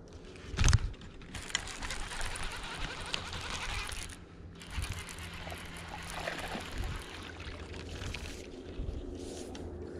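Fishing on a kayak with a baitcasting rod and reel. There is one sharp, loud knock under a second in, then several seconds of hissing, splashing water noise as the line is worked and a small bass is brought in.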